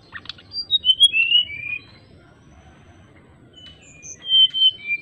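Sikatan rimba dada coklat (a jungle flycatcher) singing clear, flute-like whistled phrases. A run of notes steps down in pitch in the first two seconds, and a second phrase starts near the end.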